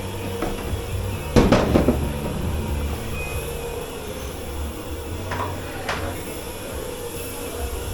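Knocks and clatter of dishware and fittings being handled in a commercial kitchen dish pit, loudest in a quick cluster about a second and a half in, with two lighter clicks later. A steady hum of kitchen machinery runs underneath.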